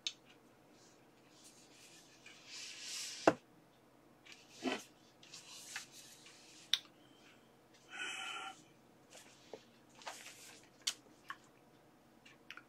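Wooden futon drawer panels being handled during assembly: scattered knocks and clicks, one sharper knock a few seconds in being the loudest, with rustling of a paper instruction sheet.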